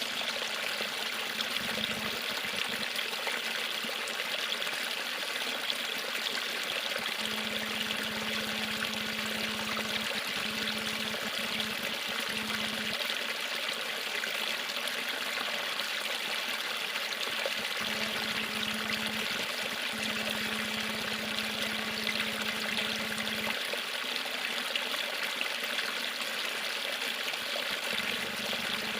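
Water of a river falling at a small waterfall, a steady even rush with no breaks.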